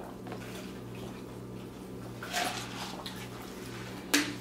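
Close-miked chewing of a mouthful of burger: soft wet mouth sounds and small clicks, a louder wet burst a little past halfway and a sharp smack near the end, over a steady low hum.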